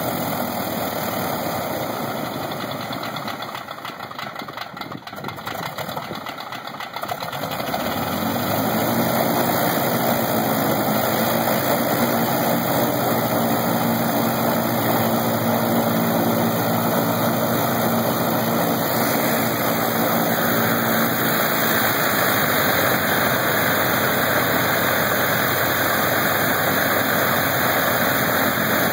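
Lycoming R-680 nine-cylinder radial engine running with its propeller turning. It drops in level for a few seconds, comes back up about seven seconds in, and then runs steadily louder.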